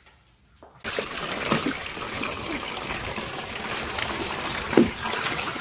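Pug puppies scrambling in a plastic tub full of plastic balls: a busy, steady rattle and scrabble of paws and balls on plastic that starts suddenly about a second in, with a couple of brief squeaks.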